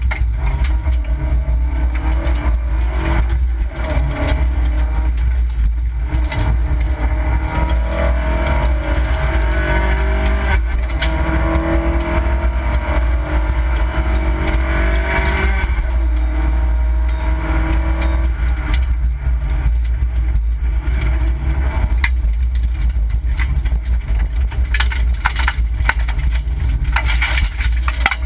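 Opel Corsa B rally car's engine revving hard inside the cabin, its pitch rising and falling as the driver works up and down through the gears, over a heavy low rumble of road noise. Near the end, sharp clattering comes in as the car runs onto loose gravel.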